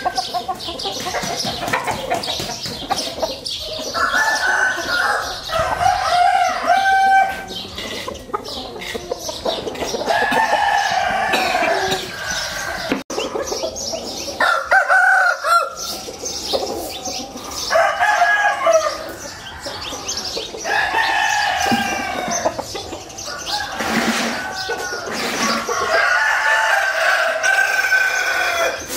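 Gamecock roosters crowing again and again, a crow of a second or two every three or four seconds.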